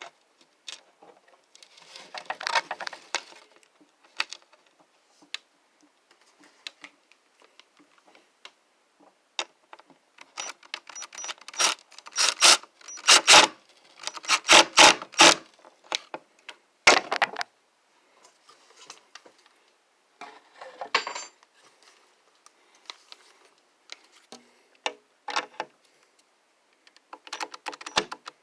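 Intermittent metallic clicks and clinks from hand tools and screws being handled while a shelf brace is fastened, in scattered clusters, busiest in the middle.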